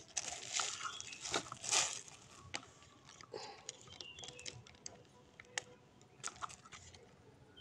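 Green chilies being snapped apart by hand over bean sprouts and a plastic bag: a soft crinkling for the first two seconds or so, then scattered small crisp snaps and clicks.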